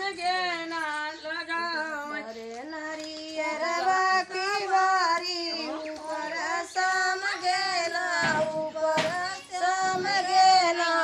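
Women's voices singing an unaccompanied folk song in a high register, with long held, wavering notes.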